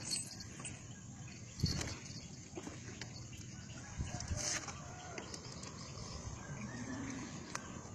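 Two dull knocks, about a second and a half and four seconds in, among light rustling and clicks over a steady background hiss.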